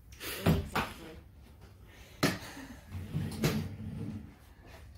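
A handful of sharp knocks and thumps, about five in all, from people moving through a doorway and handling a door.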